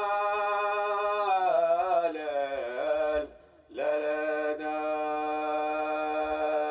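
Man singing unaccompanied in the Hadrami dan style, in two long drawn-out phrases. The first phrase wavers and slides down near its end, and after a short break about three seconds in, the second holds one steady note.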